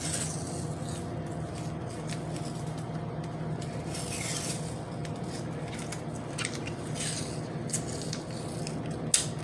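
Adhesive tape being pulled off its roll and wrapped around a small plastic battery-pack case, in a few short hissing peels with handling rustle. There is a sharp click near the end.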